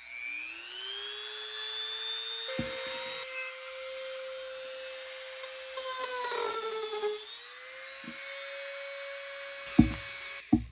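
Wen handheld rotary tool motor spinning up to a high, steady whine. About six seconds in it briefly drops in pitch and turns rough under load, as in a quick cut, then climbs back to speed. A few knocks are heard, and the motor stops just before the end.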